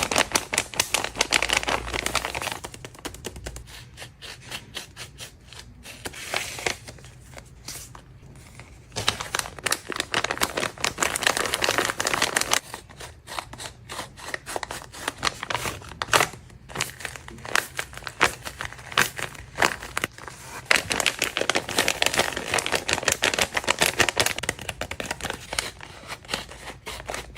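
Paper crinkling and rustling in repeated stretches of crackly handling, with quieter pauses between, as a handmade paper blind bag is handled and torn open.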